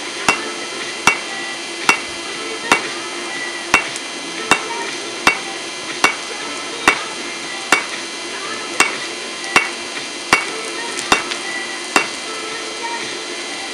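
Hand hammer beating a hot railroad spike on an anvil, a steady rhythm of sharp ringing blows about one every 0.8 seconds, stopping about 12 seconds in.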